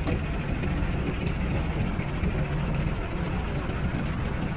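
An engine running steadily with a low rumble, with a few faint clicks over it.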